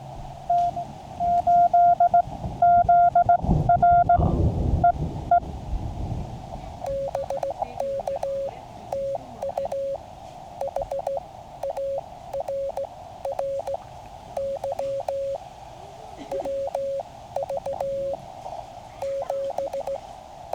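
Morse code from a QCX mini QRP transceiver in headphones: first a loud keyed sidetone as the operator sends, with a low rumble about four seconds in, then a fainter received CW signal at a slightly lower pitch in band hiss, with scattered static crackles that fit lightning on the band.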